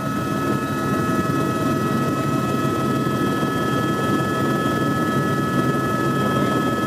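Helicopter in flight: a steady, loud rotor and engine rumble with a constant high whine.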